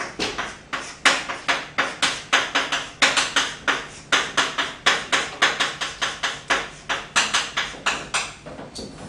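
Chalk tapping and scraping on a blackboard as Japanese characters are written stroke by stroke: a quick run of sharp strokes, about four to five a second, stopping shortly before the end.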